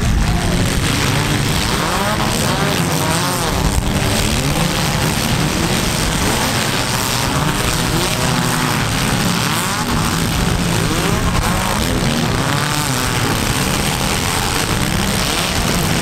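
Several small-car engines revving at once, their overlapping notes rising and falling over a constant low rumble, as the mini cars of a demolition derby heat drive and ram one another.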